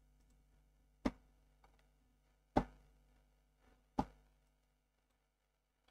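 Three sharp computer mouse clicks, about a second and a half apart, over a faint steady electrical hum.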